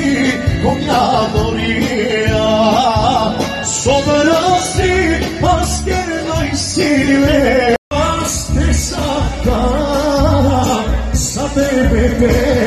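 Live band music with a male singer, played through loudspeakers; the sound cuts out for an instant about eight seconds in.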